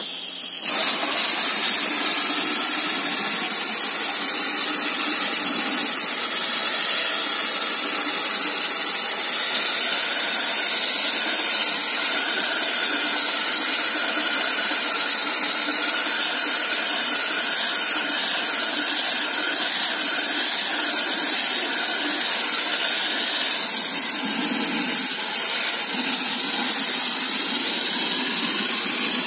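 Sandblasting gun blasting steadily, a loud hiss of compressed air and grit, over a Parkside 50-litre air compressor running. The hiss fills out fuller about a second in.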